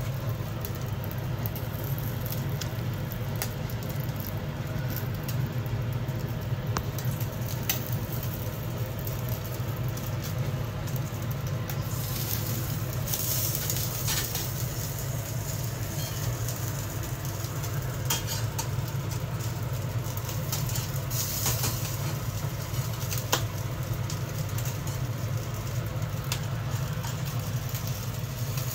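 Gas stove burner running under a whole fish grilling on a wire rack: a steady low rumble with an even hiss, and faint scattered crackles and ticks from the cooking fish.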